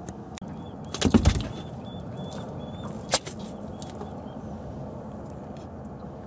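Northern pikeminnow flopping on a boat's carpeted deck: a quick burst of thuds and slaps about a second in, then one sharp smack about three seconds in.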